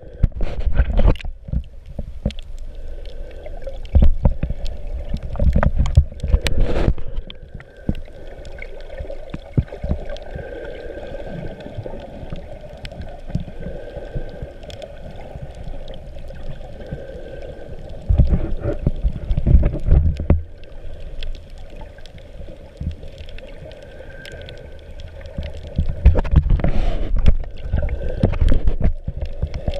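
Water sloshing and rushing around a GoPro's waterproof housing as it moves at and just below the sea surface, heard muffled. Louder surges of low churning come about four seconds in, around eighteen seconds and near the end, with a quieter, steadier underwater rush between them.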